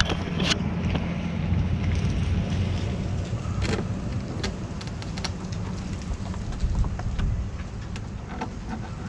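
Steady low rumble with a few scattered light clicks and knocks, the loudest about a third of the way in.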